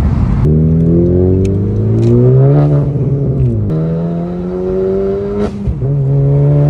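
Honda Civic Si's turbocharged 1.5-litre four-cylinder breathing through a PRL front pipe and downpipe and a MAP Performance catback with race muffler, pulling under acceleration. The exhaust note climbs in pitch, drops back about three and a half seconds in, climbs again and drops back once more near the end.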